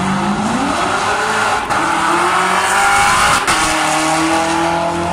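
Car's engine at full throttle on a drag strip run, its pitch climbing steeply over the first second and a half, then dropping sharply once about three and a half seconds in and holding steady.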